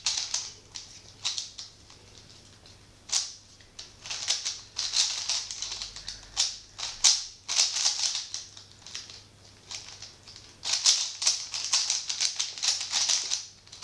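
Plastic 3x3 Rubik's cube being turned rapidly by hand during a solve: bursts of fast clicking and clacking as the layers snap round, with short pauses between bursts.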